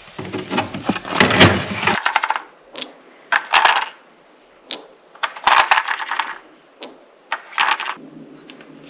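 Batteries being swapped in a small battery-powered camera: rustling handling noise at first, then a string of short plastic clicks and the clinking rattle of the batteries.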